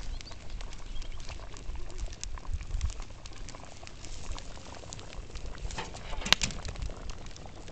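Wood fire crackling under a cauldron of stew at a rolling boil: scattered sharp pops and clicks, one much louder about six seconds in, over a low uneven rumble.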